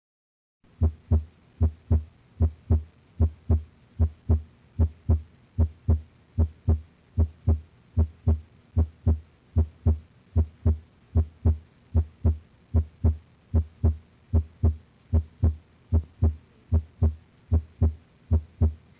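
Auscultated heart sounds: a steady, even rhythm of short, low beats, close to three a second, from a heart-sound recording taken with a stethoscope. It starts just under a second in and cuts off at the end.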